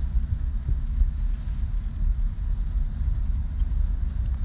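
Low, steady rumble of a moving chase vehicle, mixed with wind buffeting the microphone.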